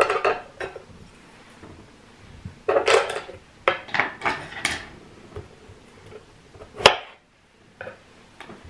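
Kitchen utensils and dishes clattering: a knife, bowl and cutting board knocking in irregular clicks and clunks while strawberries are being cut up, with one sharp knock just before 7 seconds in.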